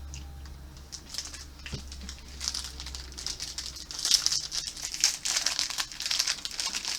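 Plastic snack wrapper being crinkled and torn open, the crackling getting busier and louder about halfway through.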